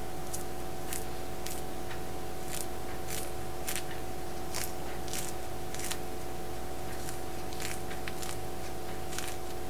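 Mandarin rind being pulled and torn away from the fruit by hand: short crisp tearing and crackling sounds, roughly one or two a second, over a steady hum.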